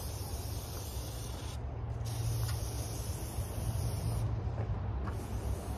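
Hissing spray in three bursts that start and cut off sharply, over a low steady hum.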